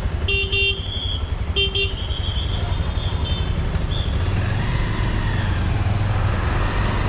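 Vehicle horn tooting in two quick double beeps about a second apart, over the low, steady running of a Bajaj Avenger cruiser's single-cylinder engine.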